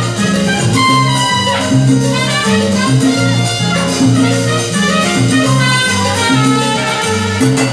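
Live salsa orchestra playing through PA speakers, with a bass line moving from note to note under the band.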